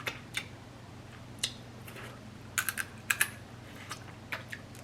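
Close-miked eating sounds of a seafood meal: a scattering of sharp clicks and crackles at uneven intervals, some in quick pairs.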